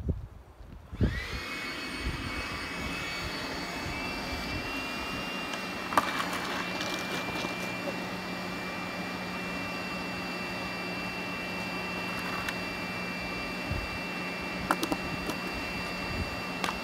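A motor-driven machine starts up about a second in, its whine rising briefly as it spins up, then runs steadily with a high whine over a low hum. A single sharp click comes about six seconds in.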